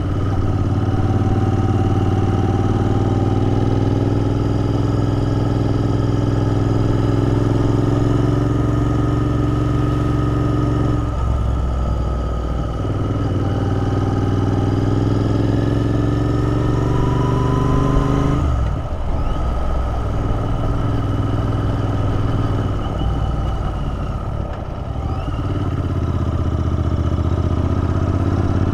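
Royal Enfield Interceptor 650's parallel-twin engine running under way at steady cruising revs. The engine note dips twice, about a third of the way in and again about two-thirds through, each time picking back up with a rising pitch.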